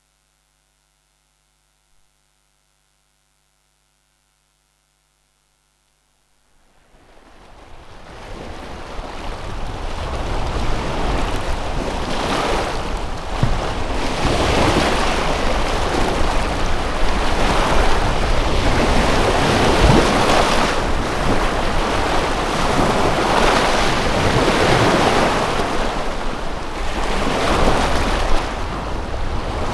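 Near silence for the first six seconds or so, then the sound of waves washing on a shore fades in. It swells and falls back every two or three seconds.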